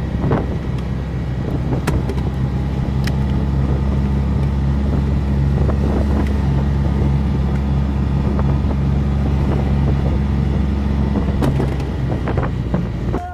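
Engine of a Polaris off-road military utility vehicle running steadily as it carries the crew, a low even hum with a few faint knocks and rattles. The engine sound falls away shortly before the end.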